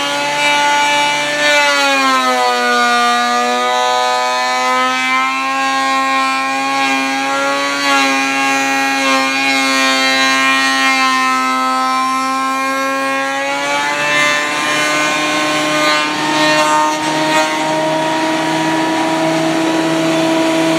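Benchtop thickness planer running with a steady high whine. About two seconds in, its pitch sags as a chestnut board goes through the cutterhead and the motor works under load. The pitch rises back to its free-running note about fourteen seconds in, once the board has passed through.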